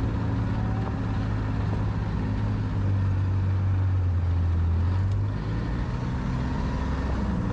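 Side-by-side ATV engine running with a steady low hum, its tone deepening slightly between about three and five seconds in.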